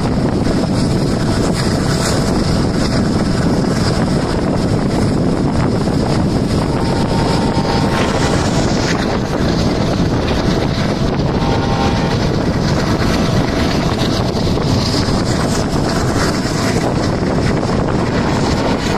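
Passenger train running at speed, heard from an open coach window: a steady rush of wind across the microphone over the train's running noise.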